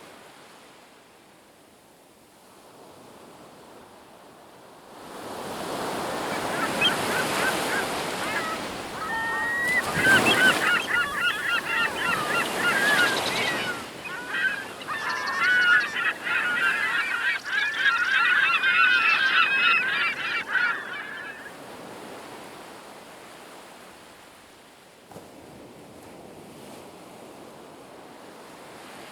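Sea waves washing, swelling louder from about five seconds in, with a flock of birds giving many short repeated calls over the surf until about twenty seconds in, when both calls and surge die down to a gentler wash.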